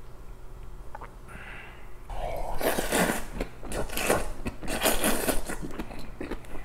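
Kongguksu noodles (thin wheat noodles in cold soy-milk broth) being slurped into the mouth. A quieter couple of seconds is followed, from about two seconds in, by loud repeated slurps, about one a second.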